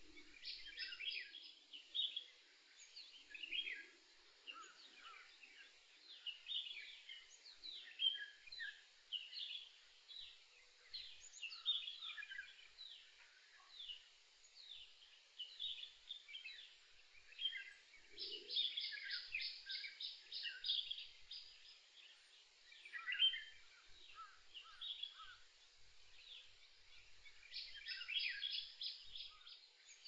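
Several songbirds chirping and whistling, with a fast trill of evenly spaced high notes about two-thirds of the way through and again near the end.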